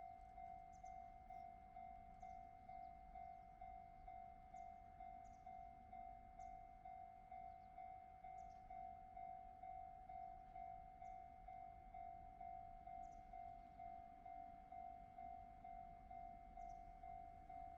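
Japanese railway level-crossing warning bell ringing steadily, a faint electronic clang repeating a little over twice a second.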